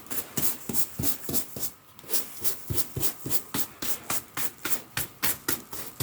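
Hand brush scrubbing sand into a carpet in quick, even strokes, about four a second, with a brief pause about two seconds in.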